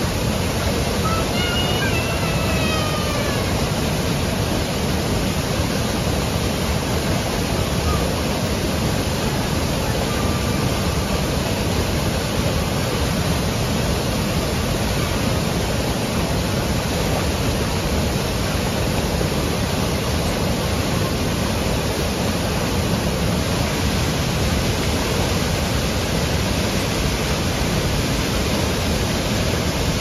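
Waterfall pouring over a rock face into a pool: a loud, steady rush of water. A few faint, high, gliding calls sound over it in the first few seconds.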